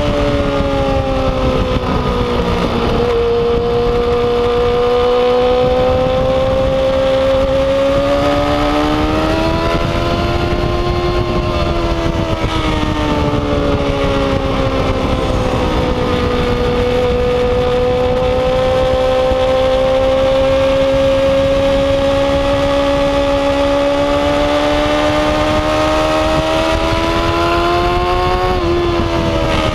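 A Yamaha R6 race bike's EDR-built inline-four runs hard at high revs, heard from a rear-mounted camera. The engine note swells and sags with speed. It drops sharply about three seconds in and jumps up briefly near the end.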